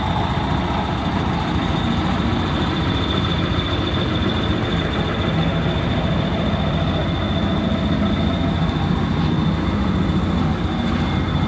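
Cessna Skyhawk II's four-cylinder piston engine and propeller running steadily at low power, heard from inside the cabin as a constant drone with a steady high whine above it.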